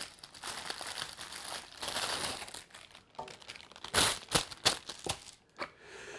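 Thin white wrapping paper being crumpled and crinkled in the hands. A steady crackly rustle gives way to a few sharper, louder crinkles about four seconds in.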